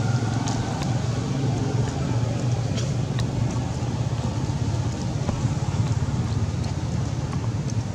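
Steady low motor rumble, with a few faint clicks over it.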